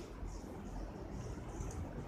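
Slime being squished and worked by hand, faint sticky crackles over a steady low background rumble.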